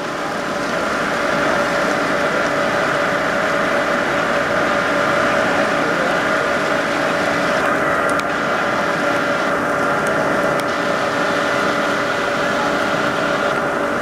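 Water running down a water slide and pouring into the splash pool, a steady rushing noise with a steady hum under it.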